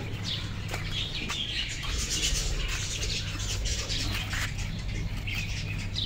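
Small birds chirping and chattering steadily, with a few sharp scrapes and clicks as dry soil is dug with a stick, over a low steady hum.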